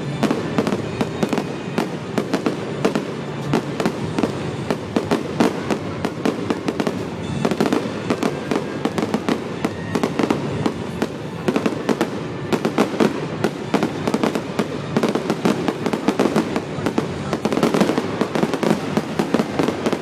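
Fireworks display in a rapid, continuous barrage of bangs and crackles, many reports every second with no break.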